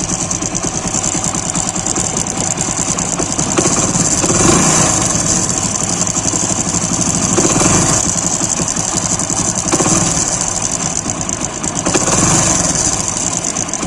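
Hero motorcycle engine idling with a light, fast jingling rattle that sounds like timing-chain noise, swelling a little a few times. The mechanic traces the rattle to a defective timing-chain roller marked with two small pits, and says it is loudest while the engine is still cold.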